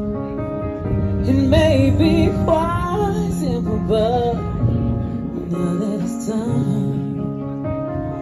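A woman singing into a microphone over sustained instrumental chords, amplified through a PA speaker. She holds wavering notes with vibrato for the first few seconds and again near the end, while the chords carry on underneath.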